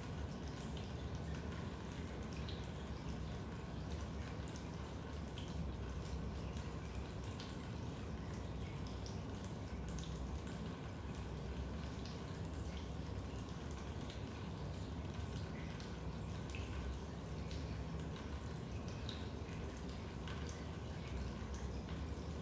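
Raindrops dripping into a basement: scattered, irregular drips over a low, steady rumble.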